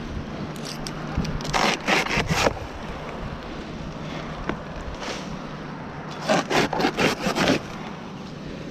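Hand saw cutting through dry palm frond stems at the crown of a palm tree. About four quick strokes come a second and a half in, then another five or so around six seconds in.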